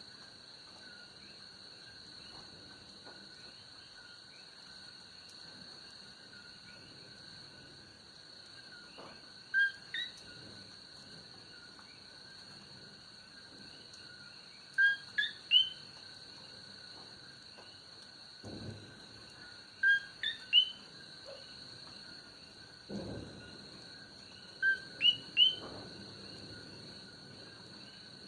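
Coqui frogs calling a sharp two-note "co-qui", a low note jumping to a higher one, in several close clusters over a steady high-pitched night chorus of frogs and insects. Two brief low rumbles come about two-thirds of the way through.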